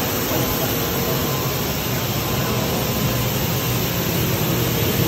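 NGR S:GRAN plastic recycling line running steadily, shredding geotextile mat on its way to pellets. A continuous, even machinery noise with a faint steady hum in it.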